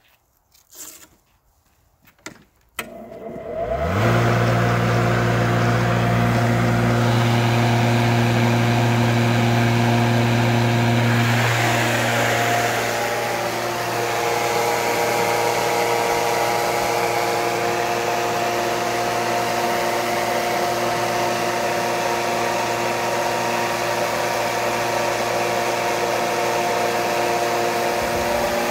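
Gas lawnmower's small engine starting: a few soft clicks, then it catches about three seconds in with a quick rise in pitch and runs steadily. Around the middle its note shifts and dips briefly, then it settles and runs on.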